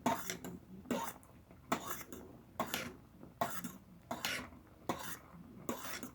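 A fork stirring pasta round a pot of boiling water, scraping through the water against the pot in even strokes about one every 0.8 seconds.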